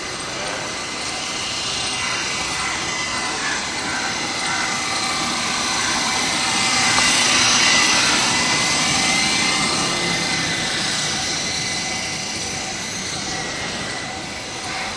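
Electric motors and rotor blades of a 3-channel Double Horse RC helicopter whirring in flight, the whine sweeping up and down in pitch as it moves and loudest about halfway through.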